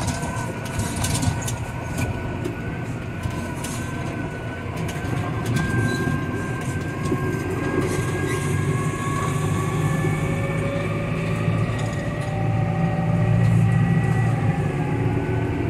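Tractor engine running steadily under way while towing a full slurry tanker, heard from inside the cab: a constant low drone with thin whining tones that drift slowly in pitch, and light rattles.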